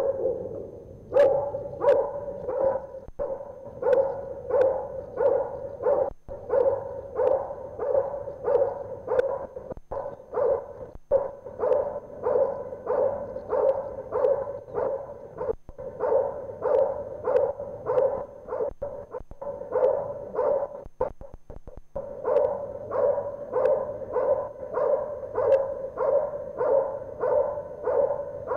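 A dog barking steadily at a helper hidden in a protection blind, about two barks a second, the hold-and-bark of IGP protection work: the dog has found the helper and is holding him in place by barking.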